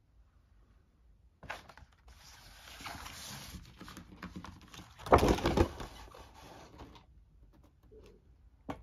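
Handling noise from a folded game mat being moved and smoothed on a table: a few seconds of rustling and scraping, loudest about five seconds in, then a single click near the end.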